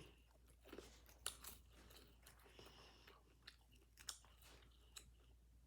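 A person chewing a corned beef sandwich close to the microphone: faint, irregular wet mouth clicks and small crunches.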